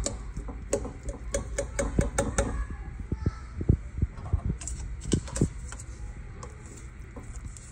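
Irregular light clicks and clinks, about a dozen, from utensils against dishes. They come in a quick cluster in the first couple of seconds, then a few more scattered ones.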